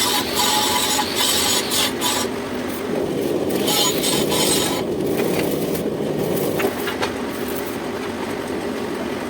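Metal lathe running while the cutting tool scrapes the pipe, a harsh rasping over the machine's steady hum for about five seconds before the cutting noise eases off.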